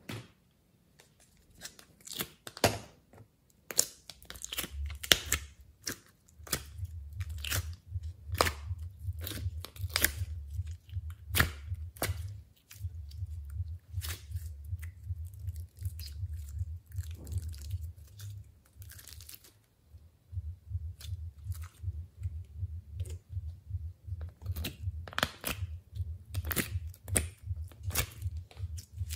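Hands squeezing and kneading foam slime, giving many irregular crunchy pops and squishes over a low handling rumble.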